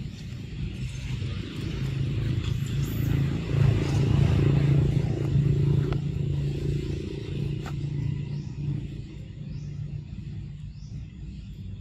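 A motor vehicle's engine humming nearby, growing louder toward the middle and then fading away.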